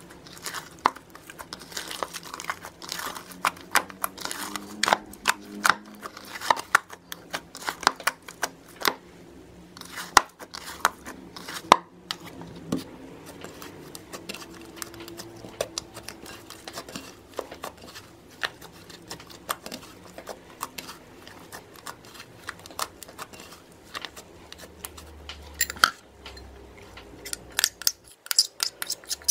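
Thick gold metallic slime being kneaded, squeezed and stretched by hand, making irregular sticky clicks and pops. Near the end a quicker run of sharper clicks.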